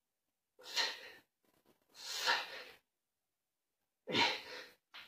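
A man's heavy breathing from the exertion of push-ups: three forceful exhalations, each under a second, about one and a half to two seconds apart, the last with a low grunt at its start.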